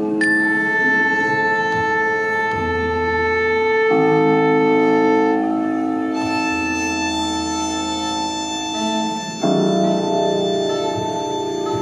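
Music of long, overlapping held tones forming slow chords, each shifting to a new chord about 4, 6 and 9.5 seconds in; the last change is louder, with a low hum beneath.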